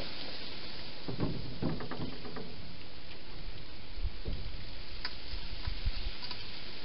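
Hedgehog feeding at a bowl: scattered soft crunches and small clicks, in a cluster about a second in and again from about four to six seconds, over a steady hiss.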